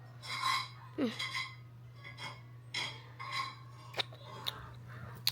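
Frozen wax candy crunching and clicking as it is bitten and chewed, a few short crackly bursts and sharp ticks over a steady low electrical hum.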